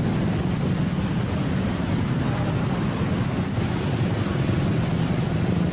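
Swollen, muddy floodwater of a river rushing past, a steady, deep rushing noise.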